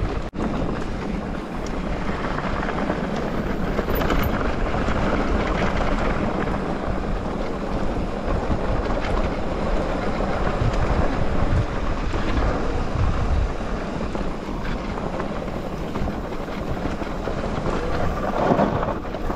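Mountain bike riding over a dirt and gravel trail: steady tyre noise on the loose surface with small knocks from the bike, and wind rushing over the microphone.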